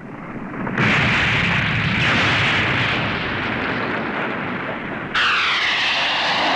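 Explosion sound effects start suddenly about a second in and run on for several seconds. About five seconds in, a jet aircraft's engine noise cuts in, with a whine that sweeps and wavers in pitch.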